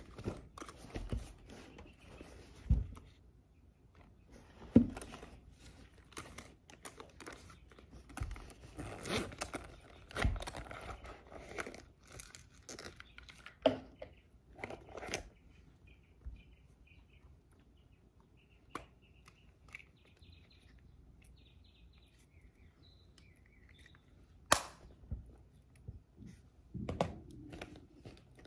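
A canvas tote bag and its contents being handled: rustling fabric, with soft knocks and clicks as items are moved about and set down on a table. Near the end comes one sharper knock, then more rustling as a small zippered pouch is handled.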